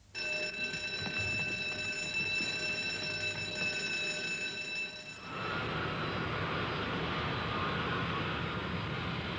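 A fire alarm sounds a steady ringing tone that starts abruptly and cuts off about five seconds in. Then loud, steady jet engine noise from a Concorde airliner takes over.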